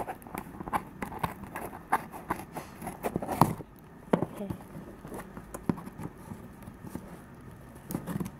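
Irregular taps, knocks and paper rustling from a brown-paper-wrapped cardboard parcel being handled, with scissors starting to cut into its wrapping near the end.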